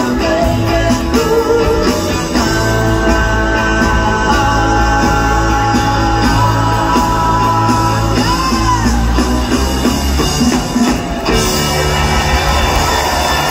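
Live rock band with electric guitars, bass and drums, with voices singing long held harmony notes over the band. About eleven seconds in the music breaks and the audience starts cheering over the band's sustained closing sound.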